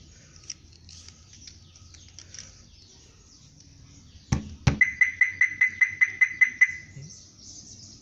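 Two knocks on the locked Maruti Suzuki's body set off its anti-theft alarm's shock sensor, which answers with a quick run of about a dozen loud, evenly spaced beeps of one pitch lasting about two seconds. This shows the shock sensor is enabled and working. Faint birdsong runs underneath before the knocks.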